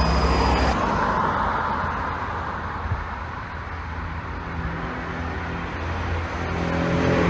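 Mercedes-AMG S63 coupe's twin-turbo V8 pulling under throttle, then lifting off about a second in and coasting with a low rumble and road noise. A few faint cracks sound from the exhaust on the overrun, from an ECU tuned to pop. The engine note picks up again near the end.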